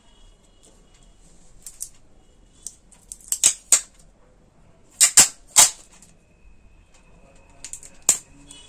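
A run of short, sharp snaps and clicks as a strip of insulating tape is pulled from its roll and taken off. The loudest are three close together about five seconds in.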